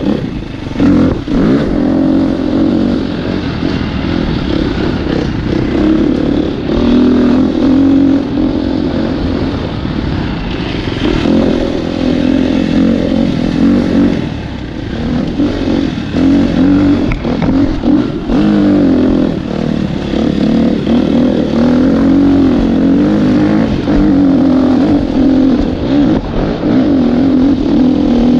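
Dirt bike engine running on a tight trail, its pitch rising and falling with the throttle, dipping briefly a few times. Brief knocks come through now and then.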